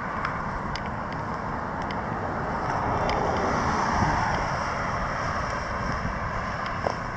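Road traffic: a car passing close by, its tyre and engine noise swelling to a peak about four seconds in, over the steady hiss of more distant cars.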